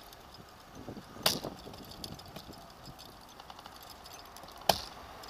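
A solar-roofed recumbent trike rolling on asphalt with a low, even road noise, broken twice by a sharp knock about three and a half seconds apart.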